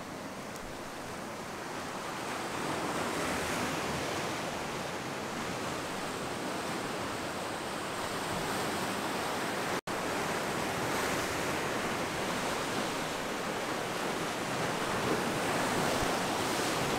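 Ocean surf breaking and washing over a rocky shoreline: a steady wash of waves. It drops out for an instant about ten seconds in.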